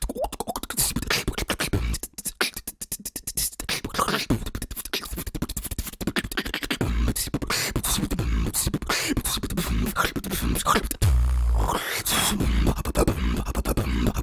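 Human beatboxing, a freestyle routine: fast clicking percussion sounds made with the mouth, over deep bass kicks. About eleven seconds in there is a held deep bass tone.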